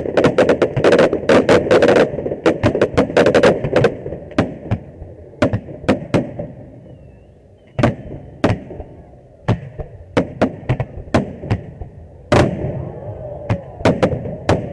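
Fireworks going off: a rapid crackle of sharp bangs for the first few seconds, thinning out to single sharp reports as shells burst, a short lull around the middle, then more bangs.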